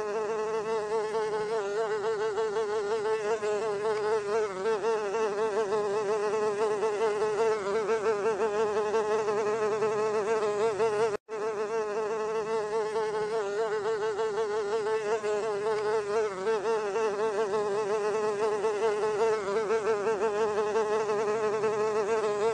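Housefly buzzing in flight: a continuous wingbeat drone whose pitch wavers slightly, broken once by a momentary gap about halfway through.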